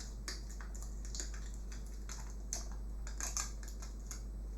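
Irregular small plastic clicks and taps as the parts of a disassembled Xbox One controller are handled and separated.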